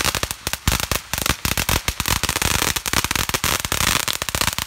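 Ground fountain firework spraying sparks with a dense, rapid crackle of many small pops a second. The crackle cuts off abruptly at the very end as the fountain burns out.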